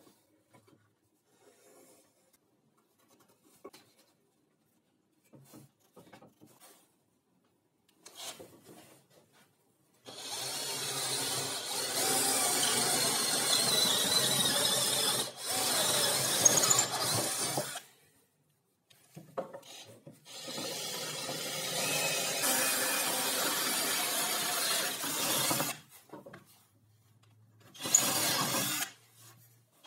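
Handheld power drill boring into wood, in two long runs of about eight and six seconds and a short one near the end. Faint taps and handling sounds come before the first run.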